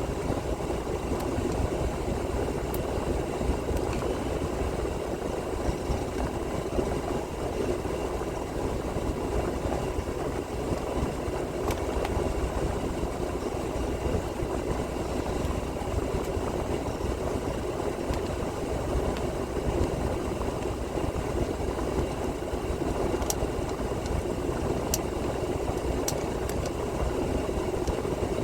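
Freightliner Cascadia semi-truck engine idling steadily, with a few faint light clicks in the second half.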